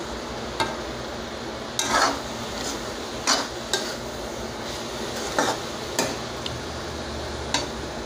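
Metal spatula scraping and clinking against a metal kadai as chopped amaranth leaves are stirred: a series of irregular strokes, the loudest about two seconds in. Under it runs a faint steady sizzle of the leaves cooking on low heat.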